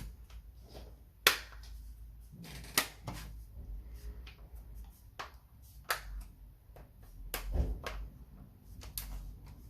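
Plastic back cover of a Medion Lifetab tablet being pressed home, its clips snapping into place with about six sharp clicks a second or so apart, the loudest two near the start.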